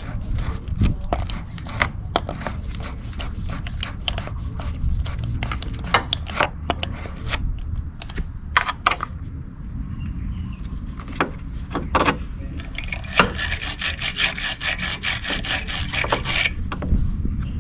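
Battery terminal cleaner's wire brush scraping and rubbing on a battery post and terminal clamp, with scattered knocks and clicks. Near the end comes a run of quick back-and-forth brushing strokes lasting a few seconds.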